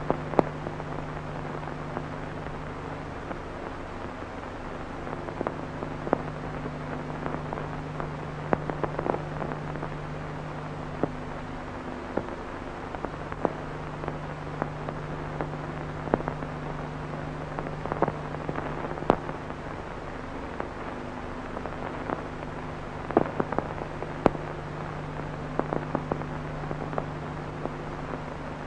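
Soundtrack of a black-and-white short film with no dialogue or music: a steady hiss scattered with crackles and pops over a low hum, which drops out briefly a few times.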